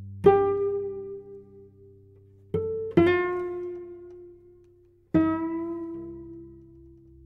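Cello played pizzicato: four plucked notes, two of them in quick succession near the middle, each ringing and dying away over a couple of seconds above a low held note.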